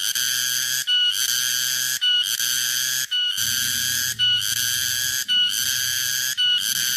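Cicada (tonggeret, garengpung) singing: a high-pitched buzzing call held in phrases of about a second. Each phrase is broken by a short gap with a brief chirp, repeating steadily about once a second.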